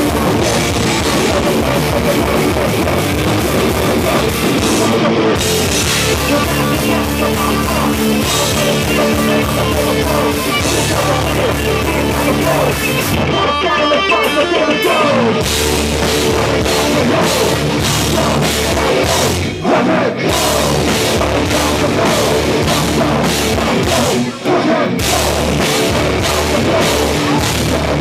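A crossover thrash band playing live at full volume: distorted electric guitars and a pounding drum kit, with a vocalist shouting into the microphone. About halfway through there is a short break where the drums and low end drop out before the full band comes back in.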